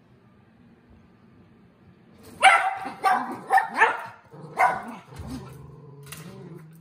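Shetland sheepdog barking at an opened kitchen drawer: a quick run of about five sharp barks beginning a couple of seconds in, then one fainter bark near the end.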